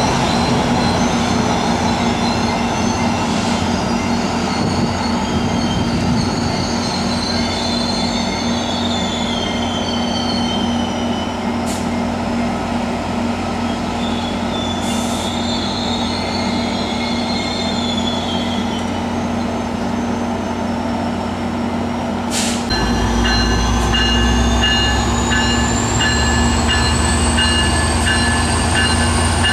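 Diesel passenger trains at a station platform: a steady low diesel hum with metal wheel squeal wavering on and off for the first two thirds. About 23 s in, the diesel of an EMD F59PHI locomotive gets louder as it powers up, with evenly pulsing ringing tones like a locomotive bell and a slowly rising whine.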